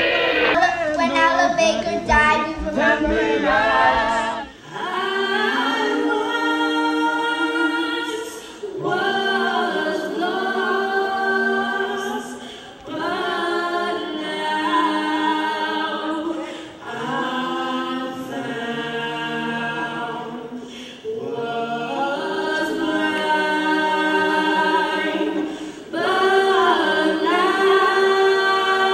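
Unaccompanied singing in long, held phrases a few seconds each with short breaks between, after a jumble of many voices that stops about four seconds in.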